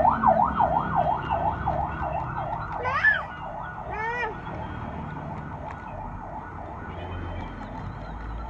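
Battery-powered toy cow giving an electronic siren-like warble, rising and falling about three and a half times a second, that cuts off about three seconds in. Two short sliding calls follow a second apart.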